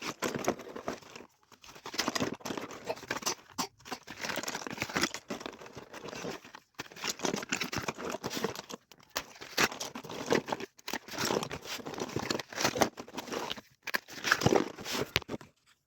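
Packaging crinkling and rustling as it is handled and opened, in stretches of a few seconds with brief pauses between them.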